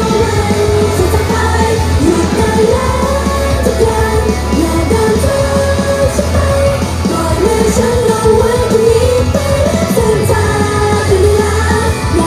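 Female idol group singing live into handheld microphones over amplified pop music with a steady bass line.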